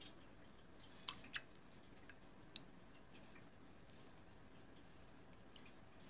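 Cockatiel bathing in a shallow ceramic dish of water: a few faint, short splashes and drips, the loudest about a second in, over a quiet room.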